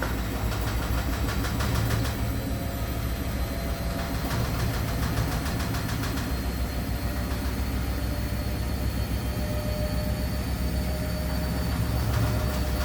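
Washing machine running at speed with a steady low rumble and a fast rattling knock, the machine shaking and jumping on the floor.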